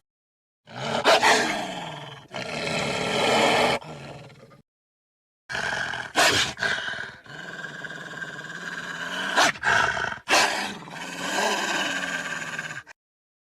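Wolf-like growls and snarling roars made as sound effects for an extinct cave wolf. They come in two edited runs split by a second of dead silence, with several sharp, loud snarl peaks and pitch sliding down within the calls.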